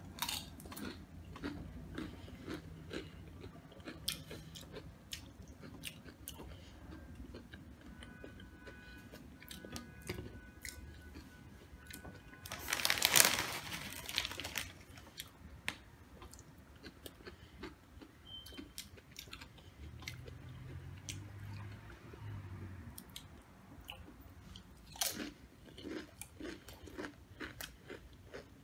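Close-miked chewing and crunching of Doritos nachos, with many scattered small clicks. A louder, noisier crunch comes about thirteen seconds in, and another sharp one near the end.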